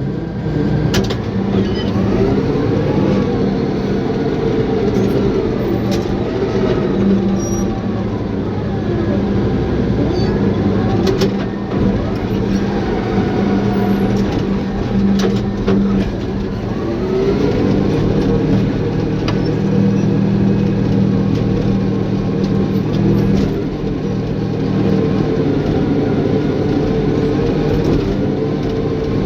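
Caterpillar bulldozer's diesel engine working, its pitch rising and falling over a steady low drone, with a few sharp metallic clanks.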